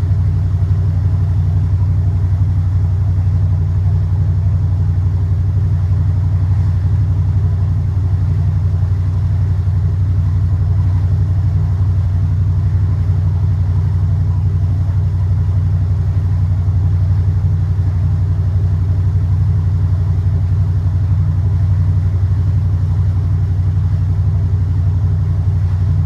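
A motor yacht's inboard engine running steadily at low cruising speed on one engine, heard aboard as an even low drone.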